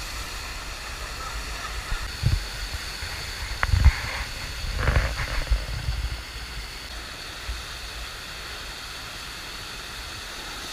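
Steady rush of the FlowRider's pumped sheet of water pouring up the ride's padded slope, with a few short low thumps about two, four and five seconds in.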